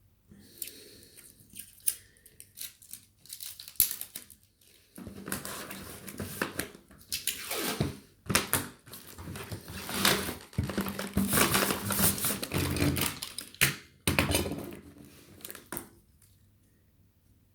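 Packing materials being handled: irregular crinkling and rustling with sharp clicks, busiest in the middle, stopping shortly before the end.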